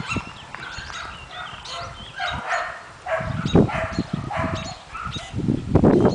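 Bichon Frisé puppies yipping and whining, many short high calls overlapping one another. Low thumps come in now and then, loudest about three and a half seconds in and again near the end.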